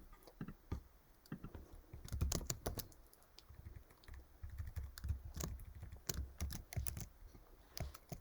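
Typing on a computer keyboard: irregular runs of quick key clicks, fairly faint.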